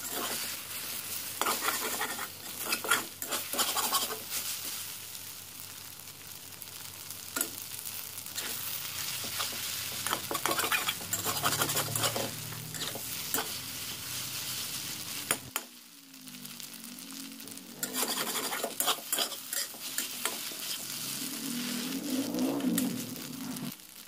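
Wide rice noodles and egg sizzling in hot oil in a wok, stirred and scraped with a metal spatula, with frequent sharp scrapes of the spatula on the pan.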